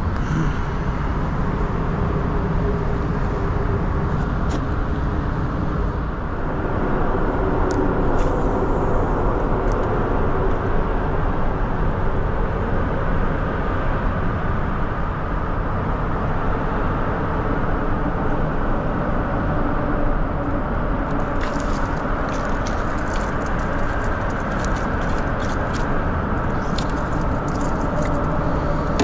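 Steady rumble of highway traffic on the bridge directly overhead, echoing off the concrete underside. In the last several seconds a quick run of small clicks and taps joins it.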